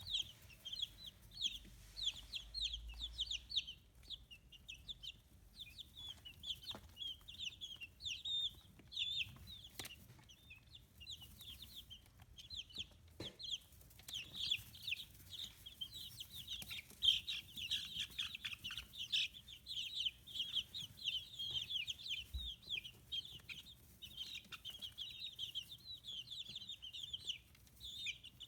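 A flock of two-week-old chicks peeping continuously, many short high chirps overlapping, with a few faint taps.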